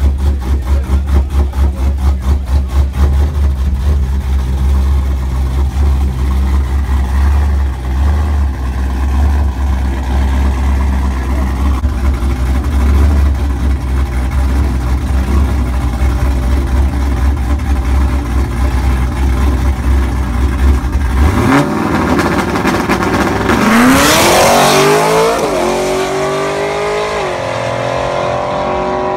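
A car engine idles with a strong, pulsing low rumble. About 21 seconds in it launches at full throttle, its pitch climbing fast with a loud rush of noise. The pitch then steps down twice near the end as it shifts up through the gears: a drag-strip launch.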